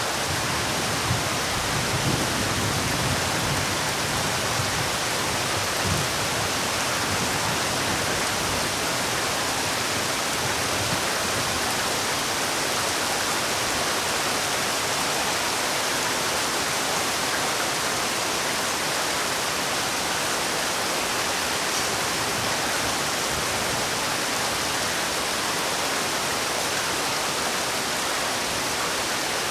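Heavy rain falling steadily: a dense, even hiss with a few faint low thumps in the first several seconds.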